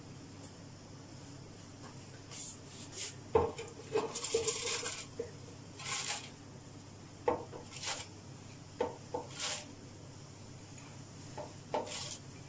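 Soaked rice scraped by hand from a bowl into a plastic blender jar: a sharp knock of dishware about three seconds in, then scattered scrapes, clinks and wet shuffling of the rice.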